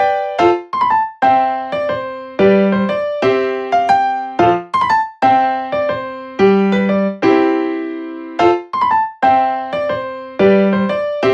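Background music: a light tune of struck notes and chords, each starting crisply and ringing out as it fades.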